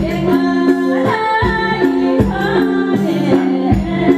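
A woman singing an old-style Nepali folk tune into a microphone over a live band, with steady sustained accompaniment notes and regular drum strikes, heard through the stage PA.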